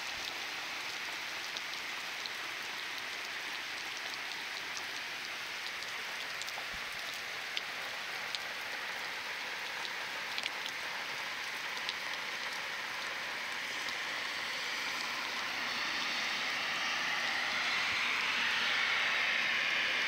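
Heavy rain falling steadily: a dense hiss with scattered ticks of single drops, swelling somewhat over the last several seconds.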